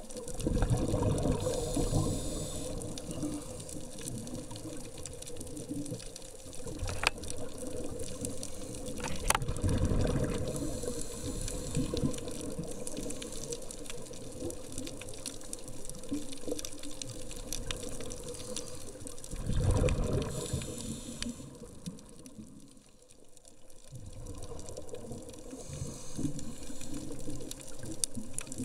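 Underwater sound of a scuba diver breathing through a regulator: loud rumbling bursts of exhaled bubbles about every ten seconds over a steady hum. Two sharp clicks about two seconds apart come roughly a quarter of the way in.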